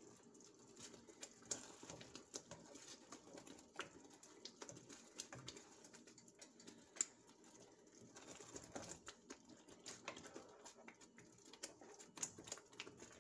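Faint, irregular clicks and scrapes of a black spoon stirring a thick chicken stuffing mixture in a frying pan, the spoon tapping against the pan.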